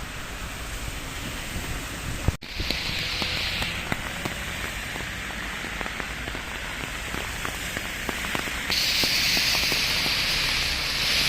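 Steady rain with scattered drops ticking. The hiss grows louder for the last couple of seconds.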